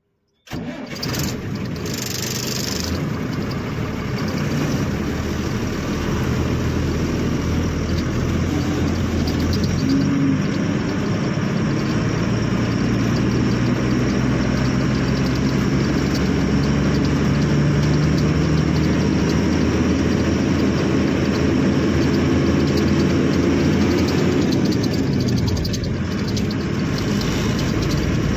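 Truck engine running as the truck drives off, its pitch rising slowly as it gains speed and then dropping near the end.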